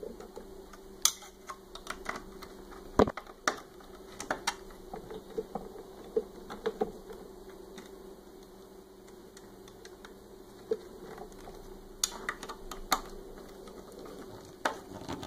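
Scattered small clicks and taps of wire ends and a screwdriver being worked into the screw terminal block of a metal-cased switching power supply, irregular, with a few sharper clicks about three seconds in and again around twelve to thirteen seconds. A faint steady hum runs underneath.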